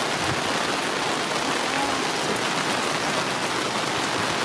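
Steady rain falling hard, an even hiss of drops with no break.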